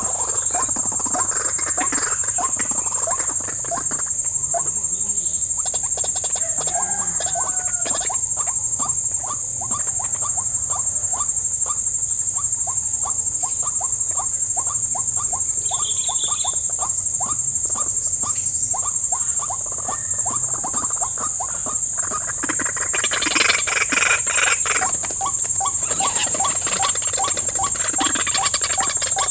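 White-breasted waterhen (ruak-ruak) calling in a long fast series of short notes, about three a second, louder and rougher about 23 seconds in, over a steady high drone of insects.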